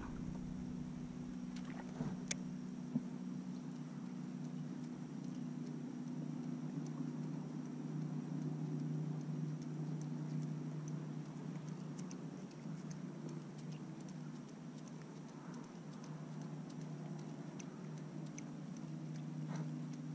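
A steady low motor hum with a few faint, scattered ticks.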